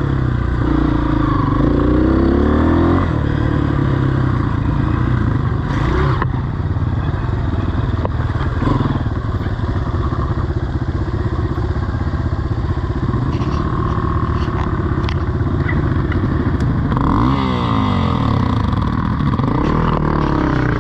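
Honda CRF230F dirt bike's single-cylinder four-stroke engine running on a trail ride, revs rising and falling as the rider works the throttle. A few short knocks and clatter from the bike over rough ground.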